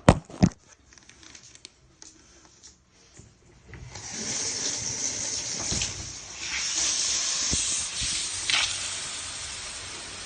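A few sharp knocks at the start, then about four seconds in the handheld shower head is turned on and its spray comes through as a steady hiss of water, aerated and frothy.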